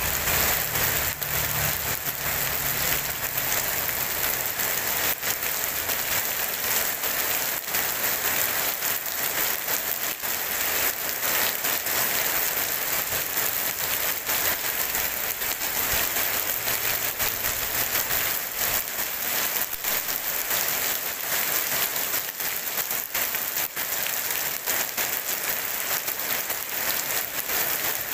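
Heavy rain falling on wet pavement and asphalt: a steady, dense hiss of drops splashing on the flooded surface.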